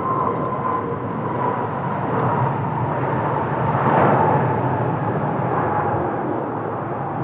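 Airbus A350-1000 airliner with Rolls-Royce Trent XWB turbofans, flying past on its landing approach. Its loud jet roar is loudest about four seconds in, and a fan whine slowly falls in pitch as it goes by.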